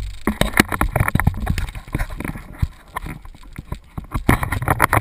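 Rapid, irregular knocking and rubbing right against the microphone: the handling noise of the camera being moved and repositioned. It starts suddenly and carries on throughout.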